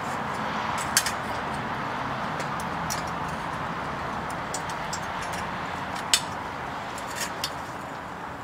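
Foundry furnace burner running with a steady rushing noise, while metal tongs and tools clink sharply against the furnace a few times, loudest about six seconds in.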